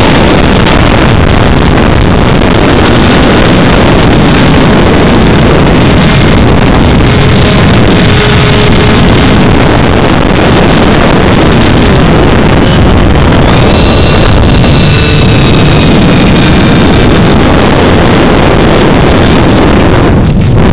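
Heavy wind rush and buffeting on the onboard camera of an HK Bixler RC foam plane in flight, loud and distorted, with the faint whine of its electric pusher motor and propeller shifting in pitch.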